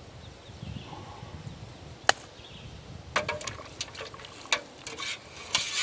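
Metal spoon clinking, knocking and scraping against a cooking pan while a thick, wet sauce is dished out. There is one sharp clink about two seconds in, then a run of irregular knocks and a short scrape near the end.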